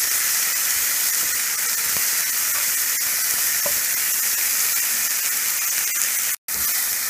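Chopped onion, tomato and green chilies sizzling steadily in hot oil in a frying pan, with light crackling as a wooden spatula stirs them. The sound cuts out for an instant near the end.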